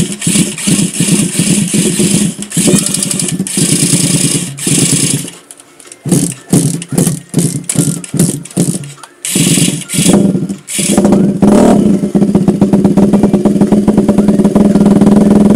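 Yamaha LC135's single-cylinder four-stroke engine being cranked with the carburetor intake held closed to draw fuel up into the freshly serviced NSR 28 mm carburetor. It fires in uneven stutters with short breaks for several seconds, then catches about eleven seconds in and runs steadily through its Exzos AHM M1 short-can exhaust.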